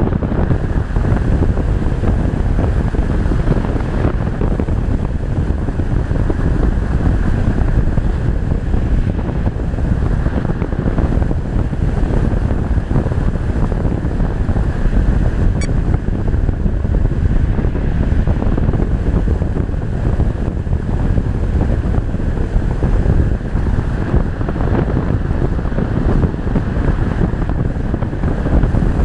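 Loud, steady rush of wind on the GoPro camera carried by a Reichard Blizzard model glider in flight.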